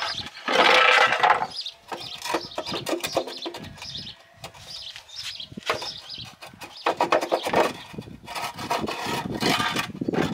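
Homemade wooden trestle jack being worked out from under a garden tractor's axle: irregular wooden scraping and knocking. The loudest scrape comes about half a second in, with more scrapes and knocks later on.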